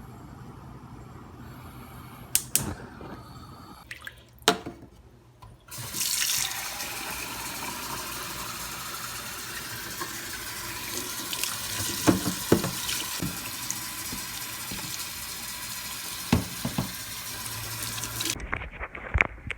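Water tap running into a sink with a steady rush for about twelve seconds, then turned off abruptly. A few knocks come before the water starts and while it runs.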